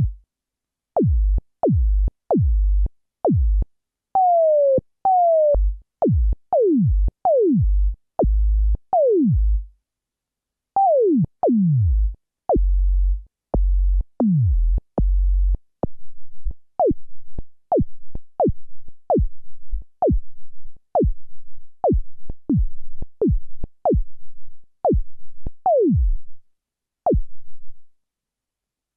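Synthesized snare drum tone from Ableton's Operator synth, triggered again and again as single hits: each is a short tone that drops quickly in pitch, some with a low thud beneath, and the length and depth of the drop change from hit to hit as the sound is tweaked. In the second half the hits come faster, about two a second.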